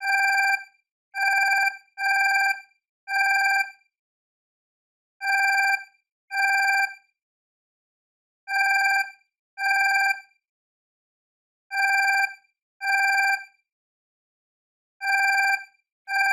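Alarm clock alarm going off: loud pitched beeps in pairs, about a second apart, with a new pair about every three seconds.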